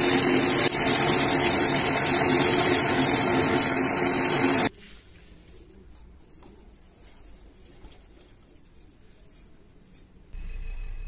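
Wood lathe running while an abrasive sanding strip is held against the spinning wooden cup: a loud, steady rasping hiss over the motor's hum. About halfway through it cuts off suddenly to a faint, quiet stretch, and a low steady hum comes in near the end.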